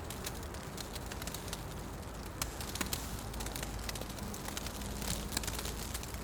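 Wood fire burning in a fireplace: irregular sharp crackles and pops over a steady low rush of flame, with a few louder pops.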